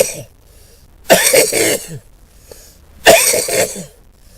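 A man coughing hard in two bursts about two seconds apart, after the tail of another right at the start. It is a chesty cough that brings up phlegm.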